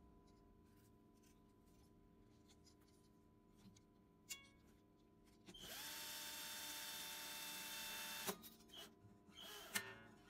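Power drill or electric string winder spinning up about halfway through, running steadily for under three seconds, then stopping abruptly, typical of winding a guitar string onto its tuning peg. Before it comes faint ringing from the strings and a couple of light clicks.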